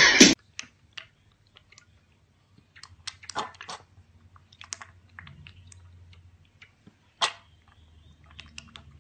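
A piglet slurping and smacking as it drinks milk from a stainless steel bowl: scattered short wet clicks and laps, with one louder slurp about seven seconds in.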